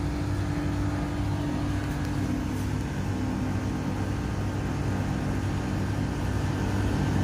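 Air-conditioner outdoor unit running: a steady fan and compressor hum with a low drone.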